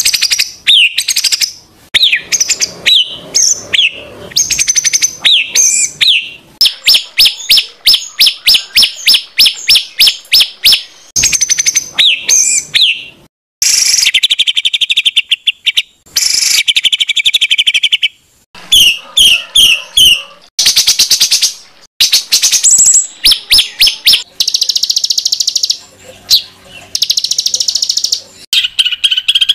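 Songbird song for training competition birds: loud, varied phrases of sweeping whistled notes, runs of rapidly repeated sharp notes at about four or five a second, and harsh buzzy bursts, with short pauses between phrases.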